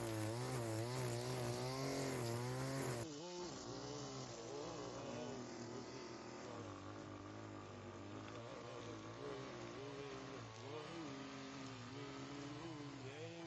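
Small gasoline engine of lawn-care equipment running, its pitch wavering up and down as it works. About three seconds in, the sound cuts abruptly to a quieter, duller take of the same engine drone.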